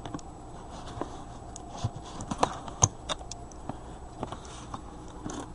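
Scissors snipping at a box's packaging: a string of irregular small clicks and taps, the sharpest about two and a half seconds in.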